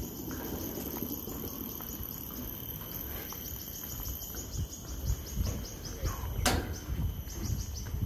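An insect chirping in rapid trains of short high pulses, about seven a second, that stop and restart, over a faint steady high insect whine. Footsteps on the walkway deck grow louder in the second half, with one sharp click about six and a half seconds in.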